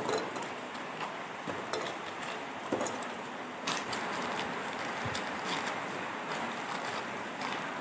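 Biscuits being snapped by hand and dropped into a steel mixer-grinder jar: scattered small cracks and clicks over a steady low hiss.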